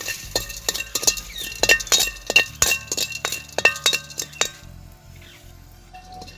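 A metal spoon clinking and scraping around a large metal kadai (wok) while dry-roasting cardamom pods, making rapid clinks with a ringing metallic note. The clinking stops about four and a half seconds in, leaving only a quiet low background.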